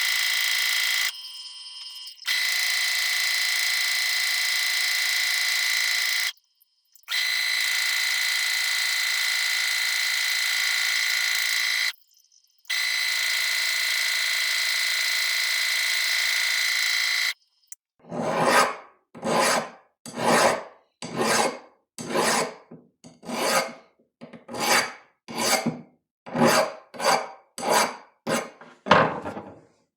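A steady machine whine with several abrupt cuts, then from about 18 seconds in, a hand file rasping back and forth on a steel bolt, about sixteen strokes at roughly one and a half a second.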